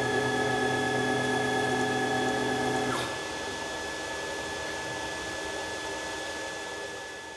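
CNC router running steadily, a machine hum with several fixed tones. About three seconds in, some of the lower tones stop and it gets quieter, then it fades out near the end.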